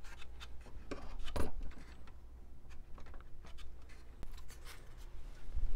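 Small handling noises: a few light clicks and rubbing as fingers work fuel tubing into place around a model plane's glow engine, over a low steady hum.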